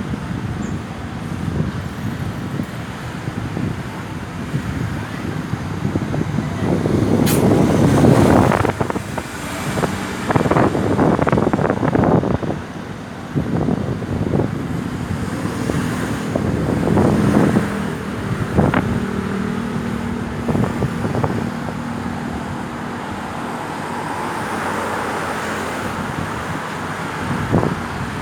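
Road traffic passing: motor vehicles' engines and tyres rising and fading as they go by, the loudest about eight seconds in.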